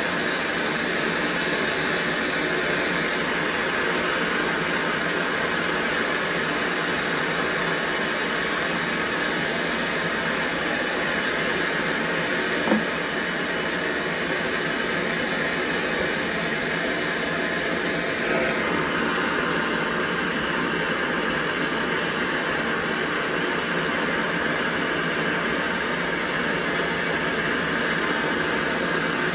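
Hand-held gas torch burning with a steady hiss as its flame heats a brass stove fuel tank for brazing. One small click about 13 seconds in.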